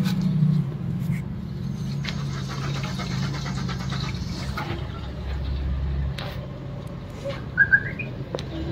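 Used engine oil draining in a stream from a car's sump into a metal drum, under a steady low hum. Short bird chirps come in near the end.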